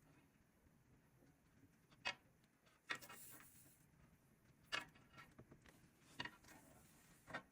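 Quiet handling sounds of craft work: about five light clicks and taps spread out, with a brief rustle just after the second.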